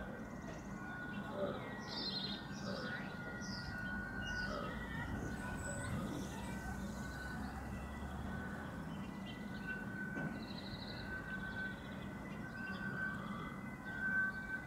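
Outdoor ambience of small birds chirping in short calls, most of them in the first few seconds. Underneath are a steady low hum and a faint high tone that comes and goes.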